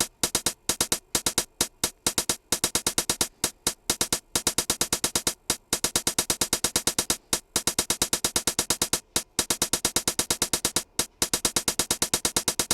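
Sampled hi-hat on an E-mu Command Station playing a sixteenth-note pattern at about eight hits a second, every hit at the same level with no variation. A few steps in the pattern are left empty.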